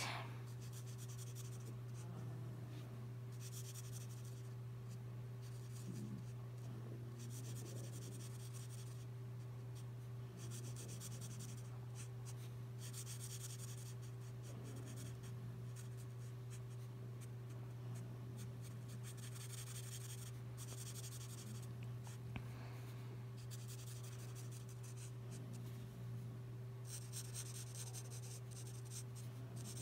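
L'emouchet twin marker nib rubbing across paper in short, irregular colouring strokes, each a soft hiss lasting about a second. A steady low hum runs underneath.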